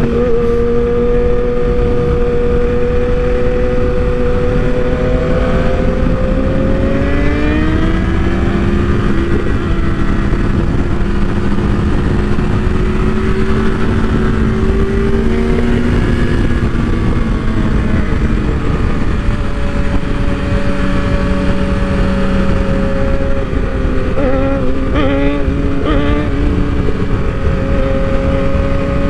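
Sport bike engine heard from the rider's seat at highway speed, over heavy wind rush on the microphone. The engine holds a steady pitch, climbs as the bike accelerates about seven seconds in, and changes pitch quickly a couple of times about 25 seconds in, as with gear changes.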